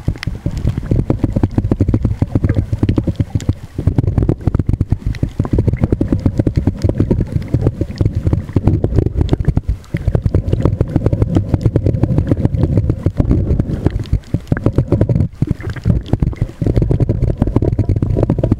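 Muffled underwater rumble with dense, irregular crackling, heard through a point-and-shoot camera sealed in a soft plastic underwater bag while snorkeling over a reef.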